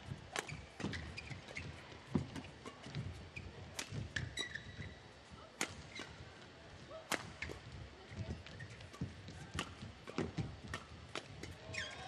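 Badminton rally: sharp cracks of rackets striking the shuttlecock, about one every second, with brief shoe squeaks on the court between hits.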